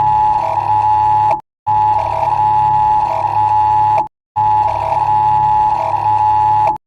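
Emergency-alert attention tone: a loud, steady two-tone alarm near 1 kHz over a low hum. It sounds in blocks of about two and a half seconds, cutting out briefly about a second and a half in, again past four seconds, and near the end.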